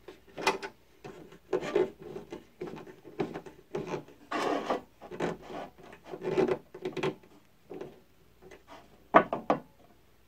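A 2x4 being shifted and slid about on a benchtop band saw's metal table, making irregular scraping rubs and light knocks of wood on metal.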